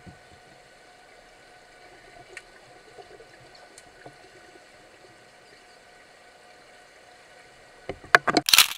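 Muffled underwater sound of a swimming pool picked up by a camera in a housing: a faint steady hiss with a few thin steady tones and scattered small clicks. Near the end come several loud bursts of bubbling and splashing.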